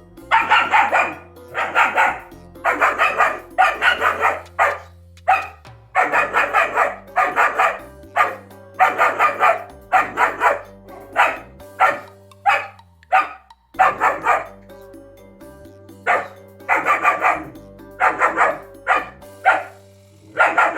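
German shepherd puppy barking in rapid volleys of several short, high barks, with brief pauses between the volleys.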